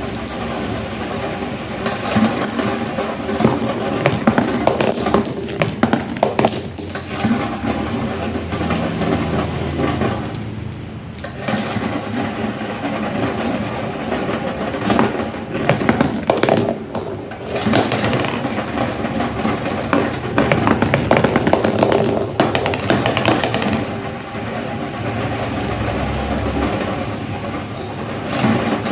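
Marbles rolling and clattering down a handmade marble run: a steady rolling rumble full of small clicks, with two brief lulls.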